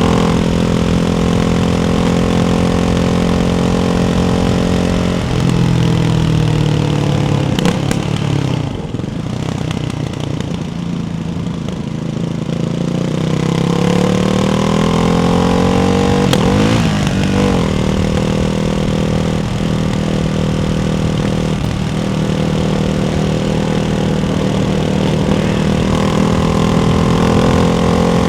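Ducati Hypermotard 698 Mono's single-cylinder engine running through a Termignoni exhaust with the baffles fitted, ridden at varying revs. The revs drop about five seconds in, run lower and quieter for several seconds, then climb back and hold steady, rising again near the end.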